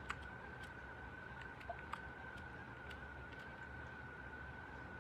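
A few faint, scattered clicks of keys pressed on a membrane gaming keyboard, mostly in the first three and a half seconds, over a steady thin high-pitched whine.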